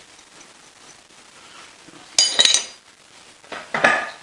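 Metal tools clinking against the lathe tailstock as its bed clamp is being unbolted: a quick cluster of three sharp, ringing clinks about halfway through, then more knocks near the end.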